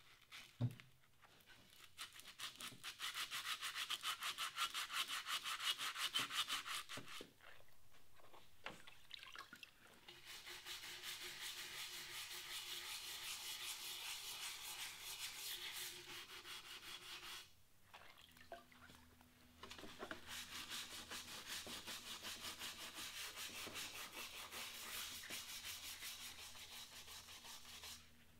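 A scrub brush scouring a wet cast iron pot in rapid back-and-forth strokes, in three long spells separated by short pauses. A single sharp knock about a second in.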